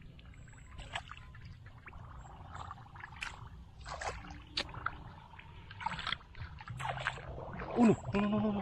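Water splashing and sloshing in irregular bursts, with a brief voice near the end.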